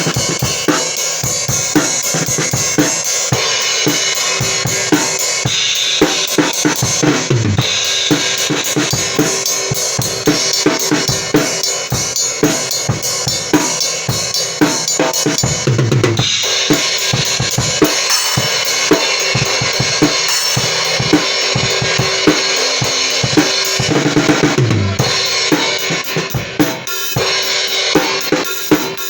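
Meinl HCS 18-inch crash-ride cymbal, made of MS63 brass, played on a drum kit: a steady wash of cymbal strokes over kick and snare drum hits in a regular beat.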